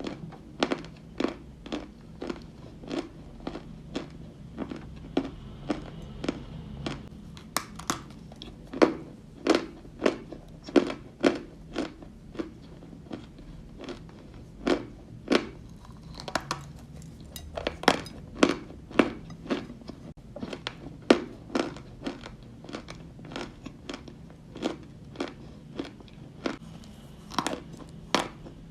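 Close-up crunching and chewing of Turkestan white edible clay, in short sharp crunches about two a second.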